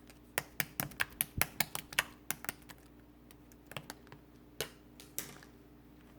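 White slime being handled, giving off crisp clicks and pops: a quick run of them for the first two and a half seconds, then a few scattered ones.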